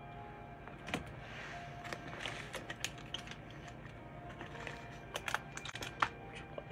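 Handling of a black quilted Lady Dior handbag: irregular small clicks, taps and light jingling from its gold metal handle rings and dangling charms as it is turned over.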